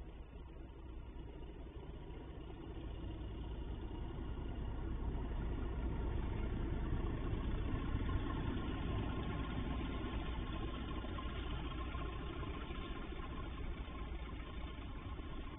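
Class 37 diesel locomotive's English Electric V12 engine working as it hauls a freight train past, the sound building to a peak about eight seconds in and then slowly easing off.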